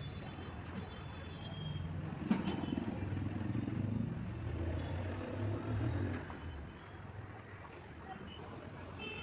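A low motor rumble swells about two seconds in, starting with a sharp click, and fades out around six and a half seconds.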